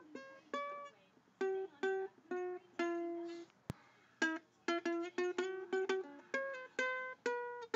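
Background music: a plucked-string tune of single notes, each struck sharply and dying away, with a brief click a little under four seconds in.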